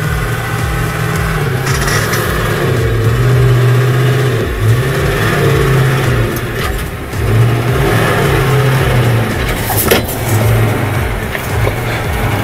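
Heavy dump truck's diesel engine revving repeatedly, its pitch swelling and falling every second or two as the truck labours through soft mud. There is a single sharp knock about ten seconds in.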